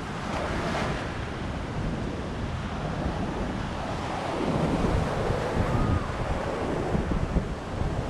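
Small sea waves washing up on a sandy shore, with wind buffeting the microphone in a low rumble. The surf swells louder about halfway through.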